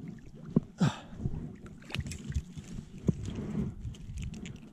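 A freshly landed rainbow trout flopping and splashing at the water's edge, with sharp knocks and rustles of handling close by and a louder rush of noise about a second in.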